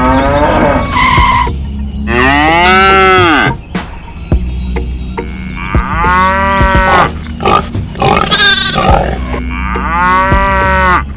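Cow mooing: three long calls that rise and fall in pitch, about four seconds apart, over a steady low hum.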